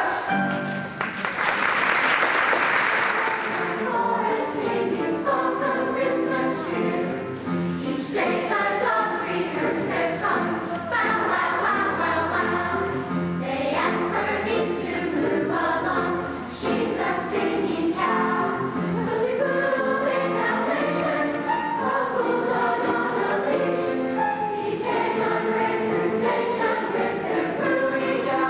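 Middle-school choir singing, with a short burst of clapping about a second in.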